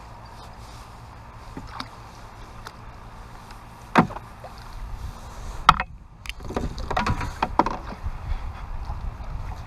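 Wind rumbling on the microphone aboard a small fishing boat, with two sharp knocks about four and nearly six seconds in, then a couple of seconds of louder knocking and rustling.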